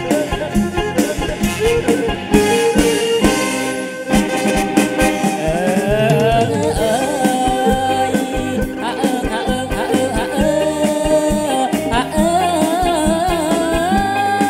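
Live kantrum band music: drum kit and electric bass under a two-string bowed fiddle (tro). A male voice comes in about halfway through, singing long, wavering notes.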